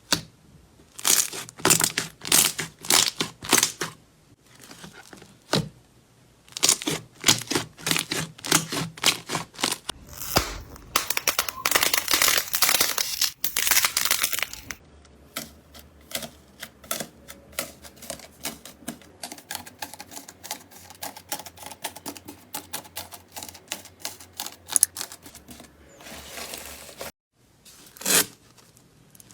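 Slime being pressed and worked by hand, crackling and popping in quick runs of sharp clicks. It changes abruptly several times: a stretch of continuous crackle in the middle, then softer clicking.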